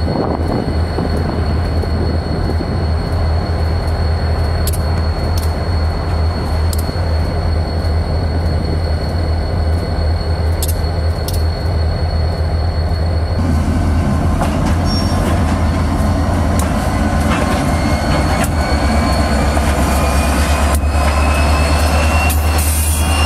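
A steady low rumble. About halfway through it gives way to Union Pacific diesel locomotives rolling past close by, hauling covered hopper cars, with scattered clanks and a high wheel squeal that rises slowly in pitch near the end.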